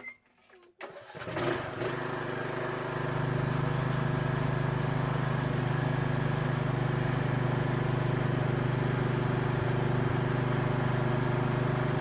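Riding lawn mower engine starting up about a second in, then running steadily.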